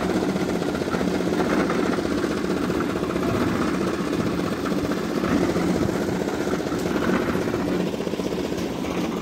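Engine of a concrete mixing machine running steadily at a constant speed, with a fast, even chugging.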